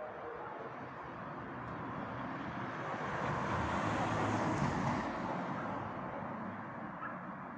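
A car driving past on the street, its tyre and engine noise swelling to a peak about four and a half seconds in, then fading away.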